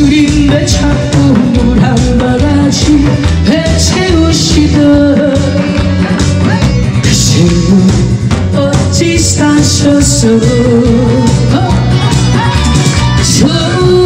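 A singer's amplified voice carrying a melody over a band backing track with a steady beat, played through a stage PA system.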